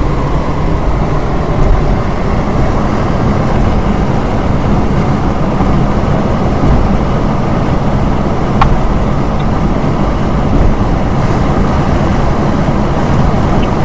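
Ford Escort station wagon cruising at about 70 mph: steady engine and road noise, with one brief click about two-thirds of the way through. The engine is running smoothly.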